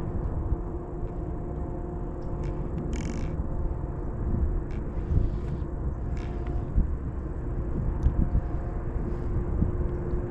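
Steady low rumble of a motor vehicle running, with a faint steady hum and a few short clicks.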